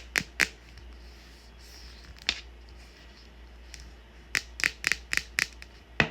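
Quick runs of sharp clicky taps on a hard phone case, about four a second, with a quiet gap in the middle.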